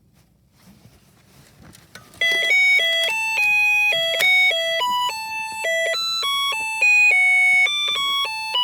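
Snap Circuits burglar alarm going off through its small speaker: a loud electronic tune of buzzy beeping notes, two or three a second, starting about two seconds in. The tune means the alarm's trigger has been set off.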